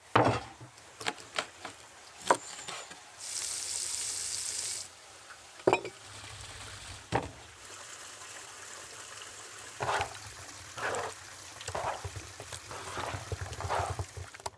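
Food-preparation sounds cut together: sharp knocks and clatters on a wooden board, a hiss about three seconds in that lasts a second and a half, and wet rubbing and splashing of hands in water near the end.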